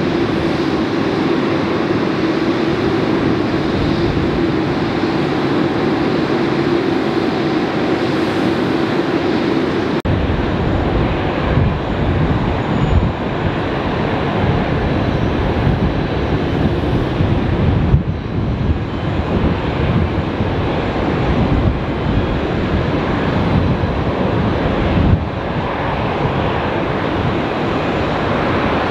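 Jet airliner's engines at takeoff thrust as a Boeing 787-9 takes off: a loud, steady rumble with a droning tone. About ten seconds in it cuts to a rougher, fluctuating low rumble of jet engines as a Boeing 747 freighter taxis.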